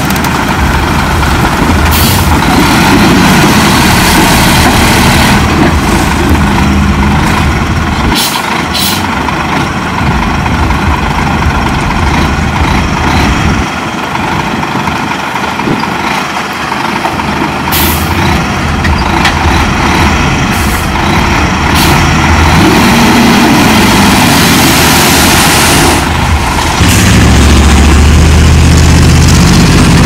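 Heavy diesel earthmoving machinery running steadily, with a few short sharp bursts of noise. Near the end the engine sound gets louder and deeper.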